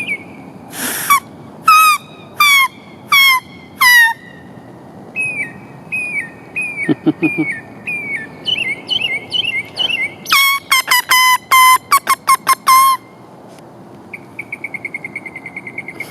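Northern mockingbird singing a run of varied whistled phrases: a few evenly spaced down-slurred notes, then quicker short slurred notes, then a fast series of loud notes. A steady buzzing trill starts near the end.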